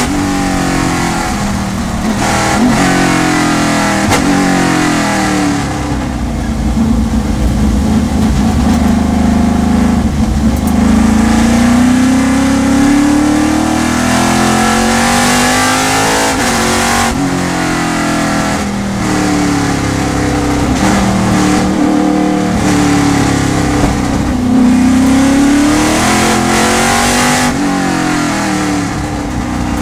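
Onboard sound of a Trans Am TA2-class V8 race car on a wet track. The engine revs up through the gears, then drops in pitch with downshifts under hard braking, and this repeats through the slow corners.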